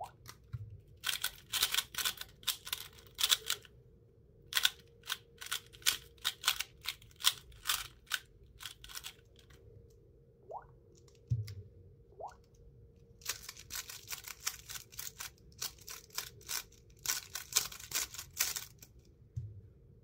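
3x3 speedcube layers turned by hand in quick runs, a rapid plastic clicking and clacking as the cubes are scrambled, with pauses between runs. A few soft thuds as cubes are set down.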